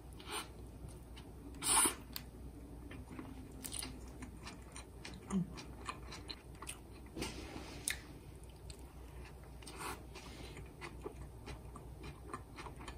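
Someone chewing and biting into a fried-chicken burger close to the microphone: irregular small crunches and mouth clicks, with one louder crunch about two seconds in.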